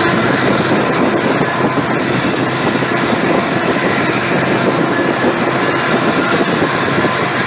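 Train running on the rails: a loud, steady rolling noise of wheels on track, with a few faint steady tones over it.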